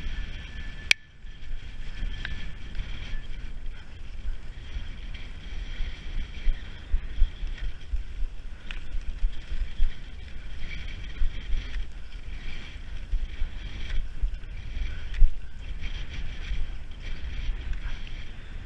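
Skis hissing as they slide over packed snow, with wind buffeting the microphone in an uneven low rumble. A single sharp click comes about a second in.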